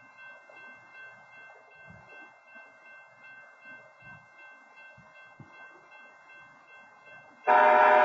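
A faint steady whine, then about seven and a half seconds in a railroad crossing's CTC wayside horn starts abruptly with a loud, steady multi-tone blast, sounding because an approaching train has triggered the crossing.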